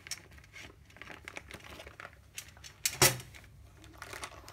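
Clear plastic bag crinkling and small clicks as bagged perforated metal robot-kit bars are handled, with one sharp knock about three seconds in as the metal is set down on the table.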